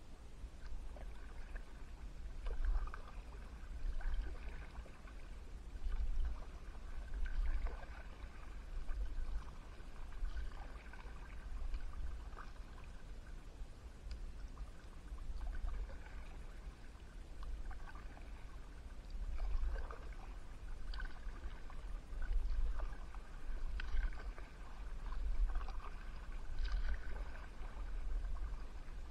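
Kayak paddle strokes in the water, a swell of splashing and dripping about every one and a half to two seconds, over a steady low rumble.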